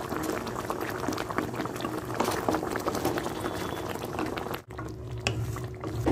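Thick masala fish curry gravy simmering in a kadai, a steady crackle of small bursting bubbles. There is a brief break about four and a half seconds in, after which a low hum runs under the bubbling.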